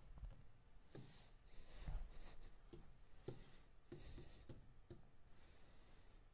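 Faint, irregular clicks and taps as keys are entered one by one on an on-screen calculator.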